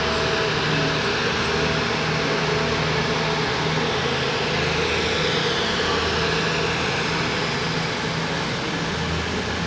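Class 222 Meridian diesel multiple unit pulling away, its underfloor diesel engines giving a steady drone.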